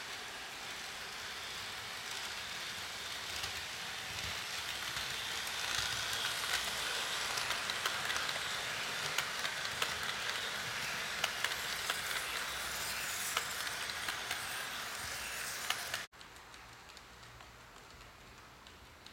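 HO scale model train running on the track: an even hiss of the motor and rolling wheels with scattered small clicks, growing louder through the middle as the cars pass close. Near the end the sound drops off suddenly to a quieter hiss.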